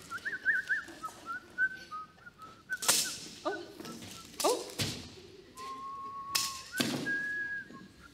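A person whistling a simple tune of held and warbling notes while working, broken by about five sharp knocks and thuds.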